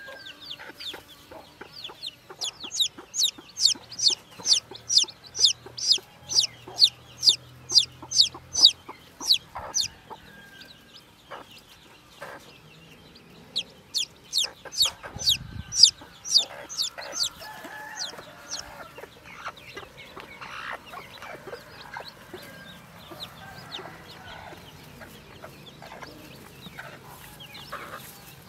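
Newly hatched chick peeping loudly and insistently, sharp high peeps about three a second, the distress calls of a chick held in the hand away from the hen; the peeping runs for several seconds, pauses, and comes back in a second run. Quieter low clucking and rustling fill the latter part.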